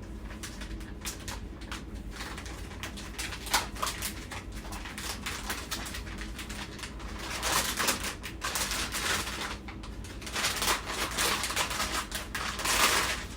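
Packaging being handled during an unboxing: scattered clicks and taps, with two longer stretches of crinkling and rustling, from about halfway in and again near the end.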